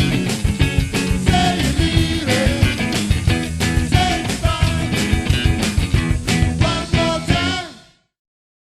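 Rock band playing drums, bass, electric guitar and singing, then fading out to silence about eight seconds in.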